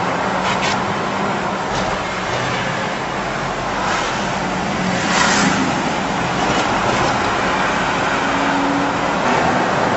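Steady road and engine noise heard from inside a moving car in highway traffic: a tyre-and-wind hiss over a low engine hum, with a brief louder rush of hiss a little past five seconds in.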